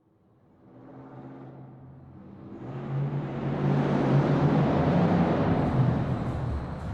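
Muscle car engine fading in from silence, running low at first, then stepping up in pitch and getting louder about three seconds in and holding a steady, loud run.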